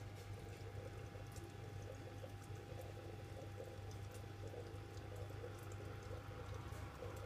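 Aquarium equipment running: a steady low hum with faint water trickling and small scattered ticks.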